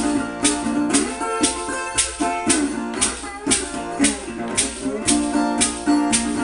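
Resonator guitar played bottleneck-slide style in a Delta blues rhythm, with notes gliding in pitch under the slide and a sharp, bright stroke about twice a second.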